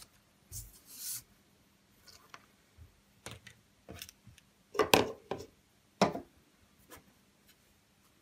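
Hands handling objects on a wooden desktop: scattered brief rubs, scrapes and light knocks, the loudest two about five and six seconds in.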